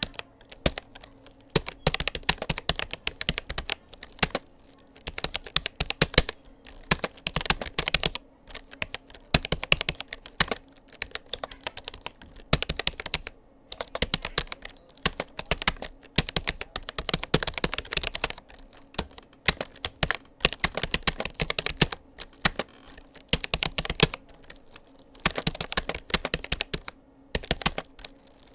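Rapoo computer keyboard being typed on steadily during a timed typing test: rapid key clicks in short runs, with brief pauses between bursts.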